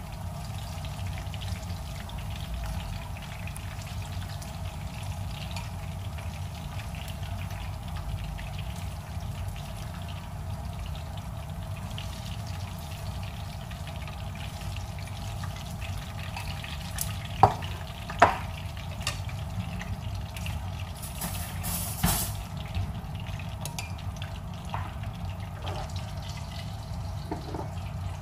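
Fish head pieces frying in a pan of oil, a faint steady sizzle over a low hum. Chopsticks click sharply against the cookware twice about two-thirds of the way in, followed shortly by a brief hiss.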